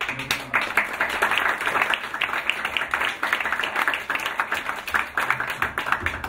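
Audience applauding, many hands clapping at once; it breaks out all together and stops abruptly after about six seconds.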